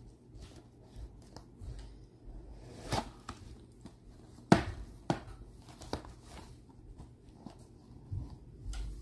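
A cardboard toy box being opened and handled with rubber-gloved hands: soft scrapes and rustles of card with a few sharp taps and knocks, the loudest about four and a half seconds in.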